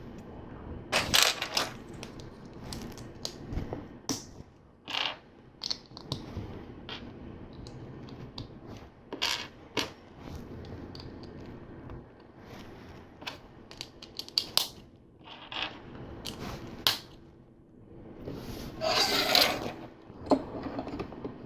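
Plastic LEGO bricks and panels being handled and pressed together: scattered sharp plastic clicks and small clatters, with a longer rattle of pieces near the end.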